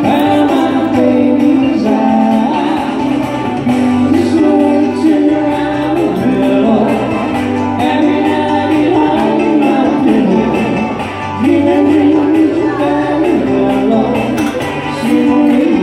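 A loud song with a singing voice over instrumental backing, played for line dancing.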